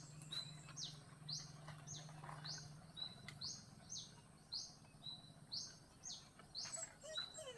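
A small bird calling over and over: a short, high note that falls in pitch, repeated about twice a second.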